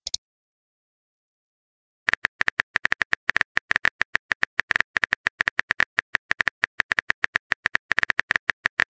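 Rapid on-screen keyboard tap clicks, the typing sound effect of a texting-story app, starting about two seconds in and running evenly at several clicks a second as a message is typed out.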